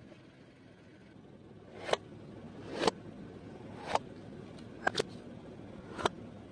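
A hammer knocking sharply about once a second, six knocks with a quick double knock near the middle.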